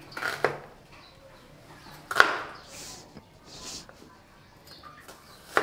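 Kitchen knife knocking on a bamboo cutting board as garlic and shallots are crushed under the flat of the blade: four sharp knocks, the loudest about two seconds in, with two short scrapes between them.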